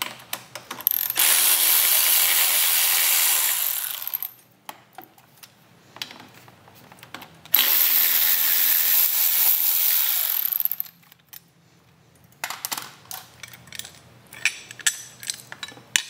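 Cordless power tool with a Torx 40 bit running twice, about three seconds each time, backing out the two frame bolts that hold a motorcycle turn-signal mount, with small clicks of handling between the runs.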